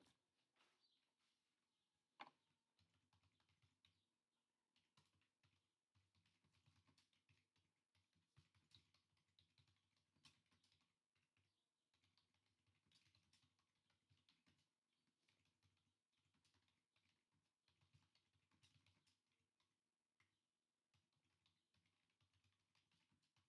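Near silence: faint room tone with a few scattered soft clicks, one a little louder about two seconds in.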